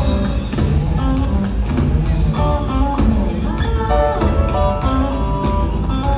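A live band playing an instrumental passage of a country-rock song: electric guitar and piano over upright bass and a drum kit with steady drum hits.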